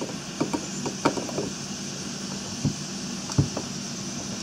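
Small clicks and taps of plastic and metal as a replacement brush assembly is handled and slid onto a Briggs & Stratton starter motor, with two duller knocks past the middle, over a steady low hum.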